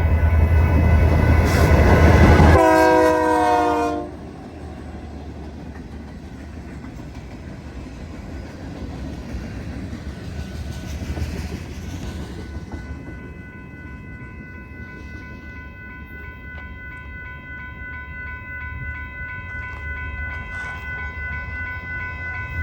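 A train passes with its locomotive's air horn sounding a chord over a heavy engine rumble. The horn drops in pitch as the locomotive goes by and cuts off about four seconds in. The cars then roll past with a steady rumble, and steady high-pitched ringing tones set in about halfway through.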